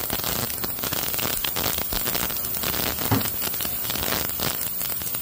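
Ultrasonic parts cleaner running with reel parts in its bath: a steady, fairly loud crackling hiss. A light knock sounds about three seconds in.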